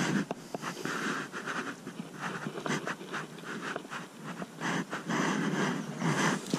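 A person breathing hard in irregular puffs close to the microphone, with shirt fabric rubbing over the camera and scattered small handling clicks.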